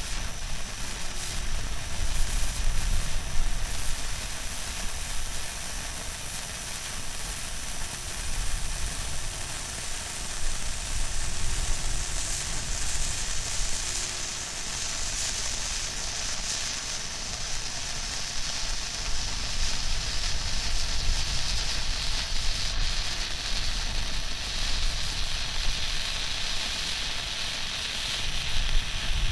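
Cutting Edge Fireworks Pyrotastic fountain firework burning with a steady hiss, which turns brighter and stronger about halfway through.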